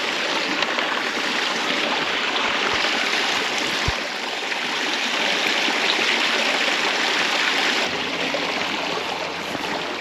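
Shallow, low-flowing creek water running steadily, with a brief soft knock about four seconds in.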